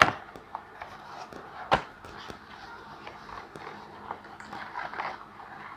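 A cardboard headset box being handled and opened by hand: a sharp tap right at the start and another just under two seconds in, with small clicks and a light rustle of card between.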